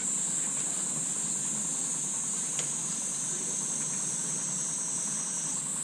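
A steady, high-pitched chorus of insects shrilling continuously, with a faint background hiss.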